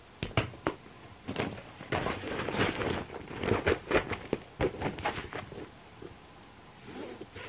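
Rustling and clicking of a cream shoulder bag being handled and packed by hand, its fabric crinkling and its metal clasp knocking, in a quick irregular run of short sounds that thins out near the end.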